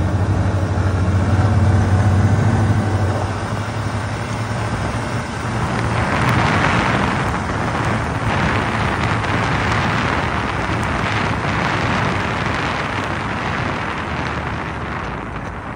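Snowmobile running across snow: a steady engine hum, then a broad rush of wind and snow noise, easing off near the end as it slows.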